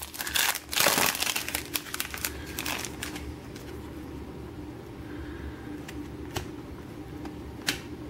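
Panini Prizm trading cards being handled and slid one behind another: a flurry of rustling and scraping for about the first three seconds, then quieter, with two sharp card clicks near the end.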